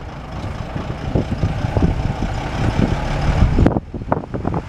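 Diesel engine of a heavy Isuzu cargo truck running as it drives slowly past, growing louder as it comes closer, then dropping off sharply near the end.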